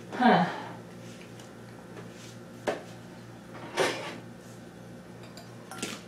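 Metal kitchen utensils knocking and clinking against a pot: four separate sharp knocks, the first, just after the start, the loudest with a short downward scrape.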